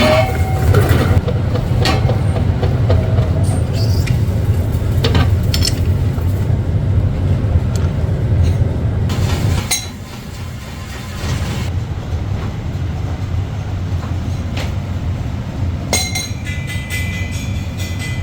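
Workshop machinery running with a steady low drone and occasional sharp metal clinks. The sound drops and changes about ten seconds in.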